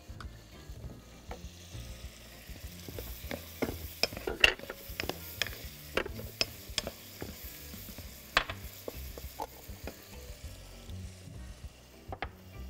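Wooden spoon stirring shrimp and onion frying in a coated pot, with a light sizzle. The spoon scrapes and knocks irregularly against the pan, most busily in the middle, with the loudest knocks about four and a half and eight seconds in.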